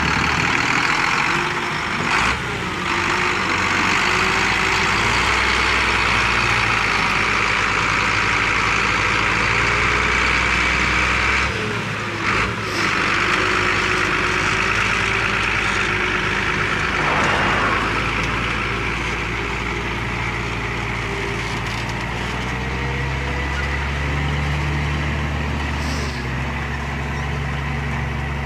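John Deere 7810 tractor's six-cylinder diesel engine running steadily under load while pulling a six-furrow reversible plough through the soil, its low note shifting up a little about two thirds of the way through. A few short knocks are heard along the way.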